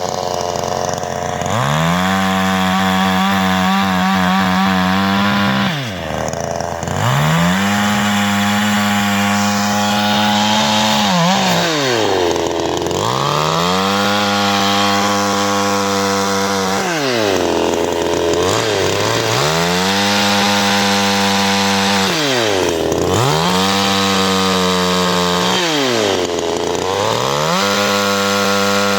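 CanFly 54.6 cc two-stroke chainsaw engine revved about six times in a row, rising each time to a high steady full-throttle note held for a few seconds, then dropping quickly back to idle.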